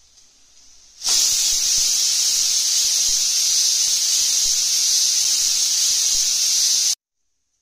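Stovetop pressure cooker whistle: steam hissing out from under the weight valve, faint at first, then loud and steady from about a second in until it cuts off suddenly near the end. The whistle marks the cooker reaching full pressure, counted as one of the whistles that time the cooking.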